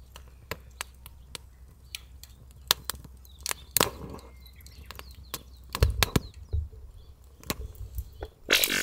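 Firewood burning in a small metal fire grill, crackling with irregular sharp pops and snaps, with a denser burst of crackling just before the end.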